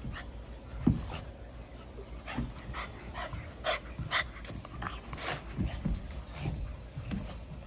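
French bulldog making a string of short, irregular dog noises, with one louder knock about a second in.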